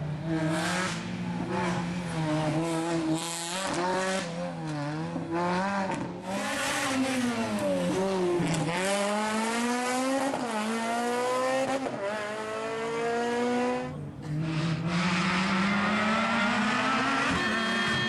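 Rally car engine at full throttle: the revs climb and then drop back several times as it shifts through the gears and lifts off, with a sharper drop three times.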